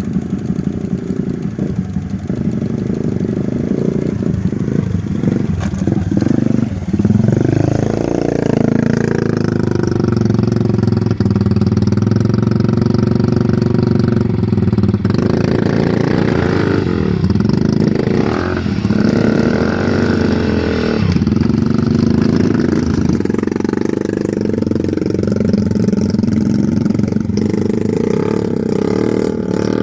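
Motorcycle engine running loudly and steadily, its pitch rising and falling again and again as the throttle is worked.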